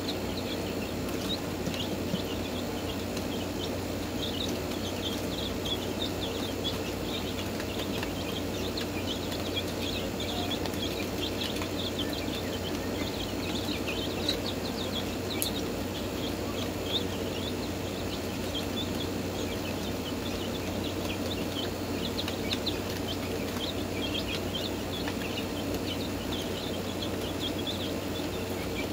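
Black Marans chickens giving many short, high chirps throughout, over a steady low hum.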